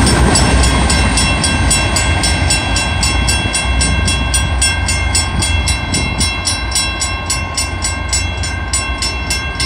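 A railroad grade-crossing bell ringing in fast, evenly spaced strikes, several a second. Under it, the rumble of a departing freight train fades as it moves away.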